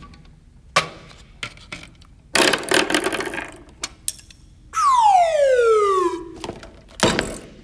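Live Foley effect of a trap being sprung: a few mechanical clicks and a short rattling burst, then a long falling whistle-like tone, and a sharp snap near the end.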